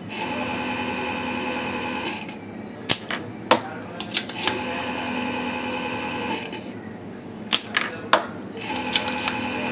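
A small electric motor whining steadily in three runs of about two seconds each, switched on and off, with sharp clicks and knocks between the runs.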